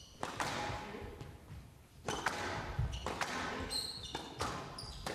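Squash rally: a string of sharp hits as rackets strike the ball and the ball smacks off the court walls, with rubber-soled shoes squeaking on the court floor, echoing in a large hall.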